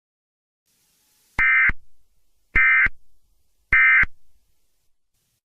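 Emergency Alert System end-of-message data bursts: three short, buzzy digital tone bursts a little over a second apart, the SAME code that closes an alert broadcast.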